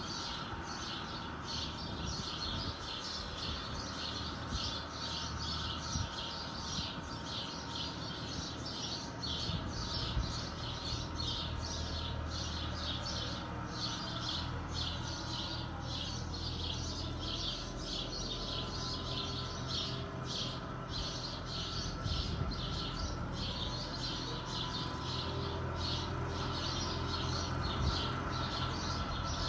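A bird chirping over and over, about two short high chirps a second, over the low steady drone of a Fiat 766 DT tractor working a roadside flail-mower arm in the distance, which swells and eases as it works.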